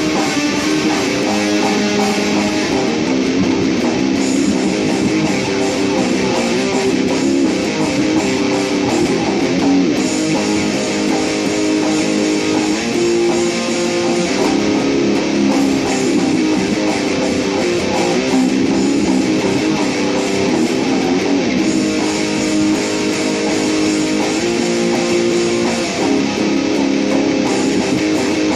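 Dean Dime Floyd ML electric guitar playing a song, with strummed chords that change every second or two.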